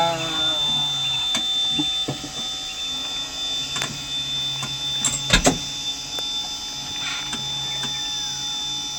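Steady low mechanical hum with a thin, steady high whine, broken by a few sharp knocks or clicks, the loudest about five seconds in.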